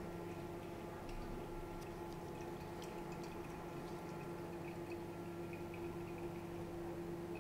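Steady hum of reef aquarium pumps with faint dripping and trickling water and small scattered ticks.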